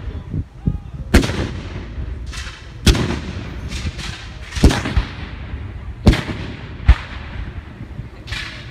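Black-powder guns firing in a reenactment battle: about half a dozen loud, sharp reports a second or two apart, with fainter shots between, each trailing off in a short echo.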